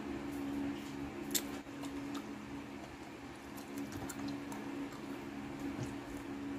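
A steady low hum under scattered light clicks and squishes of a hand handling food on a plate, with a sharper click about a second and a half in.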